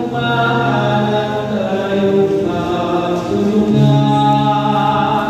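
A slow church hymn sung in long held notes, each note lasting about a second or more before stepping to the next.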